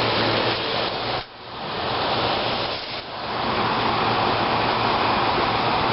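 1995 Fedders window air conditioner running with only its fan on, at low speed: a steady rushing hiss of air. The hiss drops out briefly about a second in and again near three seconds, then builds back up.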